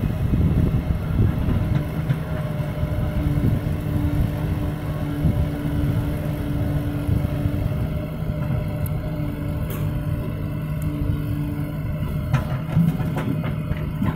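Diesel engines of a farm tractor and a backhoe loader running steadily at close range, a low even drone. A few sharp knocks come in the second half.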